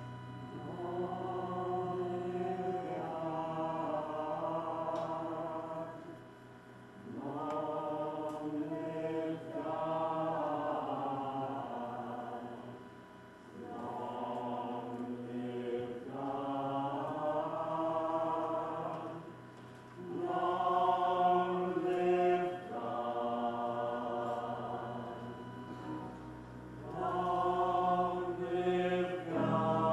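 Cast voices singing a slow, chant-like choral line in repeated pairs of phrases, a short one then a longer one, four times, over a steady low held accompaniment note.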